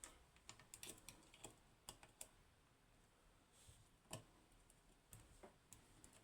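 Faint, irregular clicks and light taps from metal lock-picking tools working a 15-pin lock. The loudest click comes about four seconds in.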